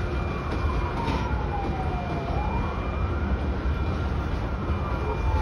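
A siren wailing: its pitch falls slowly, then sweeps quickly back up, about every three seconds. Under it is the steady low rumble of a freight train's grain hopper cars rolling past.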